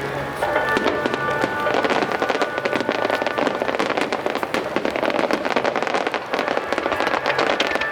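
Starmine fireworks going off in a dense barrage of rapid crackling pops, with music playing alongside.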